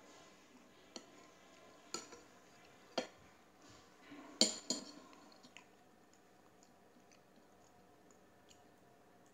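A metal fork clinking and scraping against a plate while eating, a handful of short sharp clinks in the first five seconds, the loudest about four and a half seconds in.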